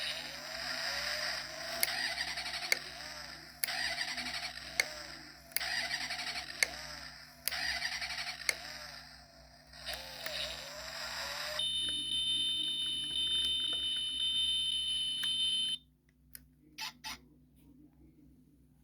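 1:32 scale diecast toy car, a Toyota AE86, making a rough whirring scrape in repeated strokes about a second long, each with a sharp click. A steady high whine follows for about four seconds and cuts off suddenly, then a few short blips.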